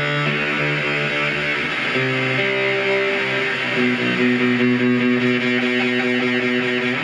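Electric guitar played through an oscillating fuzz pedal circuit with delay, holding sustained distorted notes that change pitch about two and again about four seconds in.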